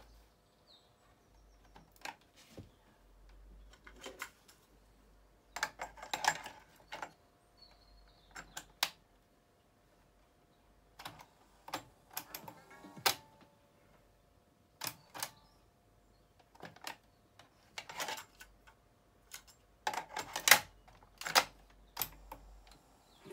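Mechanical piano-key transport buttons on a Panasonic RX-FW18 boombox's cassette deck being pressed and released: a string of sharp clicks and clunks, spread out and sometimes in quick pairs, loudest near the end.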